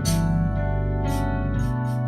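Organ playing gospel in F# minor: full held chords over sustained bass notes, with the bass moving to a new note near the end. A few short hissy accents sit above the chords.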